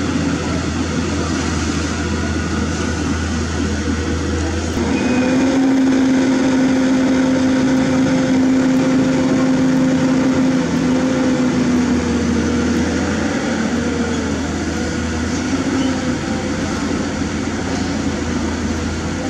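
Long-reach hydraulic excavator working, its diesel engine running steadily under load. About five seconds in a steady whine sets in over the engine, then wavers and drops in pitch a few seconds past the middle.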